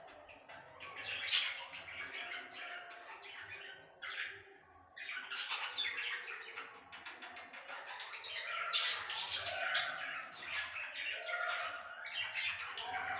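Budgerigars chattering and warbling in a busy stream of chirps, with a short lull about four seconds in.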